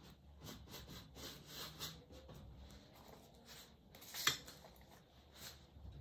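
A sponge dabbing white acrylic paint onto a stretched canvas: soft, irregular dabs, with one sharper tap about four seconds in.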